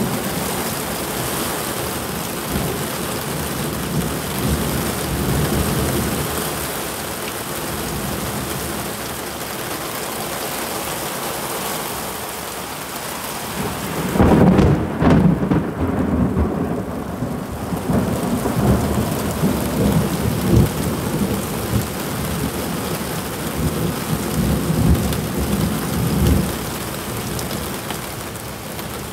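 Heavy rain pouring steadily, with low, uneven rumbling that swells about halfway through and comes and goes until near the end.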